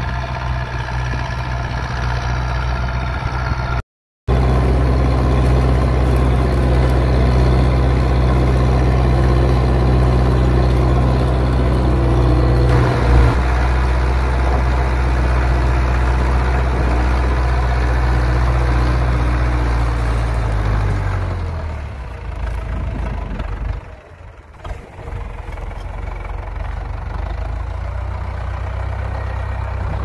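Zetor 6211 tractor's diesel engine running steadily under load while pulling a plough. The sound cuts out for a moment about four seconds in. A little after twenty seconds the engine note drops in pitch and gets quieter.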